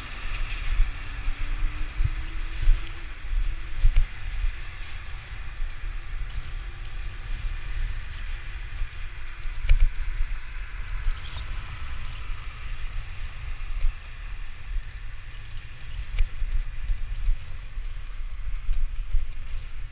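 Heavy wind rumble on the microphone of a camera moving along a road, over road hiss. A vehicle's engine rises in pitch as it passes in the first few seconds, and there is a sharp knock about ten seconds in.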